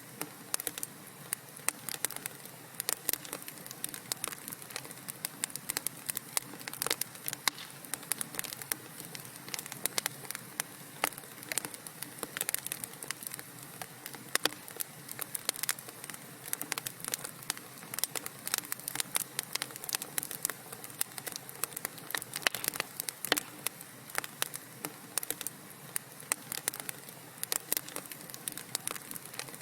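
Burning wood fire crackling steadily, with dense, irregular sharp pops and snaps over a soft even hiss.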